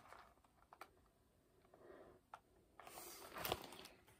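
Near silence, then the soft rustle and handling of a paperback picture book's page being turned near the end, with a light thump.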